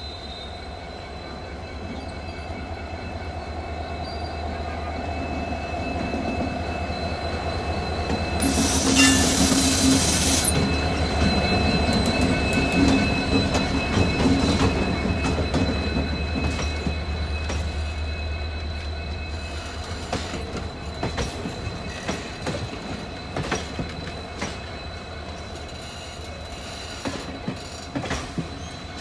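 WDP-4 diesel locomotive, an EMD design with a 16-cylinder two-stroke engine, pulling a passenger train away from a station. Its engine grows louder as it approaches and passes, with a loud burst lasting about two seconds as it goes by. Then the coaches roll past, their wheels clicking over the rail joints.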